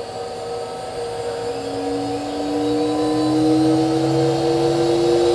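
Huanyang 800 W water-cooled CNC spindle, driven by its VFD, spinning up at full setting: a slowly rising whine that grows louder, over a steady hum.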